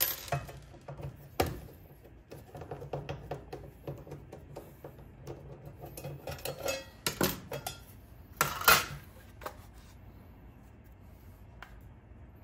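Light metallic clinks, taps and scrapes of a Ford 7.3 Powerstroke PCM's metal case being handled and opened, with a few louder clanks about a second and a half, seven and eight and a half seconds in.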